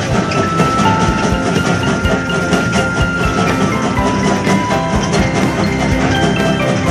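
Background music with a steady percussive beat and held melodic notes.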